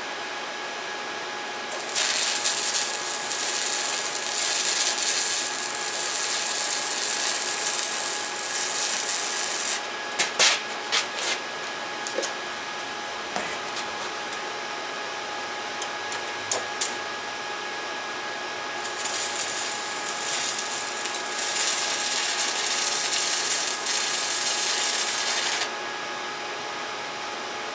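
Stick-welding arc from an Everlast STH 160 burning on thin 1.6 mm exhaust tubing: a steady crackling hiss, in two runs of about eight and seven seconds. Between them come a few sharp pops.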